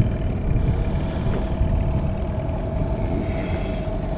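Okuma Epixor 40 spinning reel whirring in two short bursts, about half a second in and again about three seconds in, as line moves on and off the spool while a big fish is played at the boat. Under it, a steady low rumble of wind and water and a faint steady hum.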